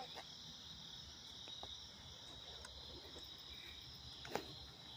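Steady high-pitched chorus of crickets and other night insects, faint, with one short click about four seconds in.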